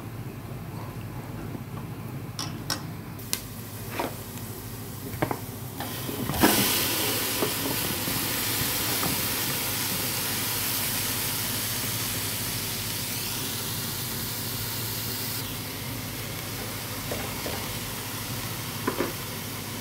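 Broccoli florets sizzling in a hot stainless steel pan: a loud hiss starts suddenly about six seconds in, eases about fifteen seconds in and keeps going more softly. Before it come a few sharp clicks of a fork against a pan of boiling water, and near the end a couple of knocks of a wooden spoon stirring.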